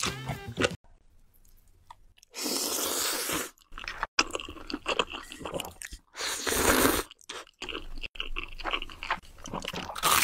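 Close-miked eating sounds: two long, loud slurps of noodles, with wet chewing and crunchy bites between and after them.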